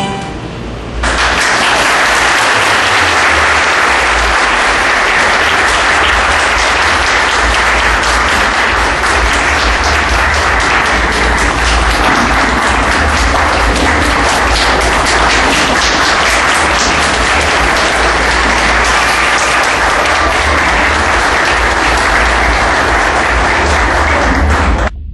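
Audience applauding steadily after a choir's song. The clapping starts about a second in, follows the last of the music, and cuts off suddenly near the end.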